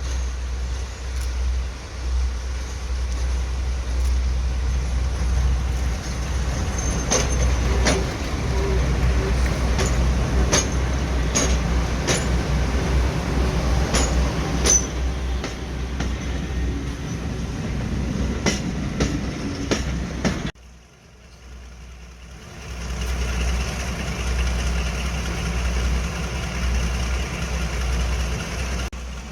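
Heritage diesel locomotive and its train running, with a run of sharp clicks through the middle. The sound drops off suddenly about two-thirds of the way through, then a steady low engine sound builds back up.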